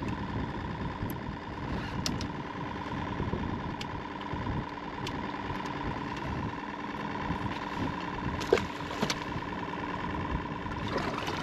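Boat motor running steadily, a continuous hum with a faint steady whine, with a couple of short clicks about two-thirds of the way through.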